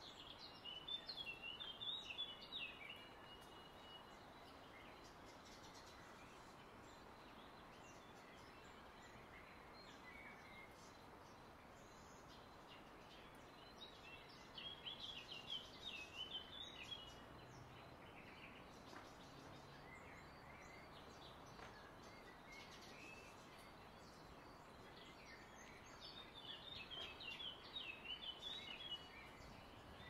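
Indian ringneck (rose-ringed) parakeet calling: three short bursts of rapid, high chattering notes, one near the start, one in the middle and one near the end, over faint steady background noise.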